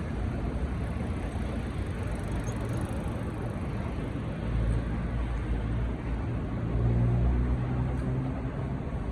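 City street traffic: a steady low engine and road rumble, swelling as vehicles pass about halfway through and again later.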